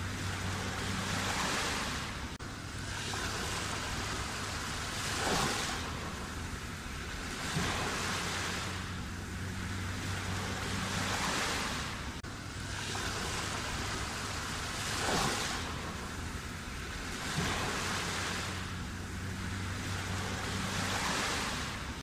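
Sea waves surging and washing in, the surf's hiss swelling and falling back every few seconds, with a few sharper surges as waves break.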